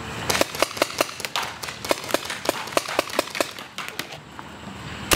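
Paintball markers firing a rapid series of sharp shots, several a second, thinning out toward the end.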